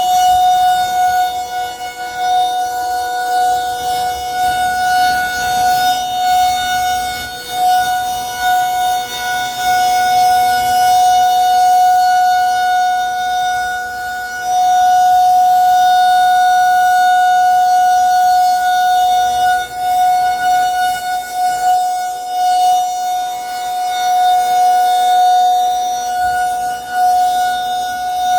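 Federal Signal 2001-SRN rotating outdoor warning siren sounding its steady one-minute alert tone during a test. It holds one unchanging pitch, growing louder and fainter as the horn turns.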